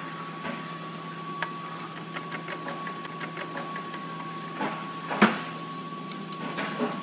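A steady hum with scattered light clicks and one sharp metallic knock about five seconds in.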